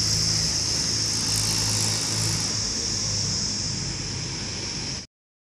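A motor scooter's small engine running steadily as it pulls away, over a constant high-pitched drone of insects. The engine eases a little after about two and a half seconds, and then all sound cuts off abruptly about five seconds in.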